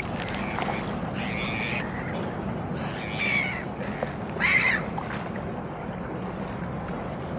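Gulls calling three times, short harsh cries about a second and a half apart, over a steady background hiss of harbour ambience.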